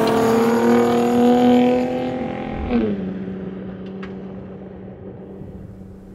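Ford Gen-3 Raptor's twin-turbo V6 passing by at speed. The engine's pitch climbs, drops sharply about three seconds in as the truck goes past, then fades away.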